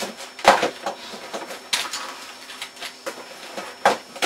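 A computer keyboard being typed on hard and fast: irregular clacking of keys, with a few louder strikes.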